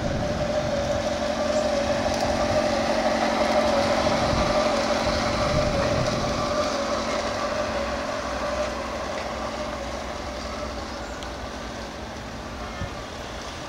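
Garden-scale model freight train running past on its track: a steady motor whine over the rumble of wheels on rail, loudest about four seconds in and then fading as it moves away.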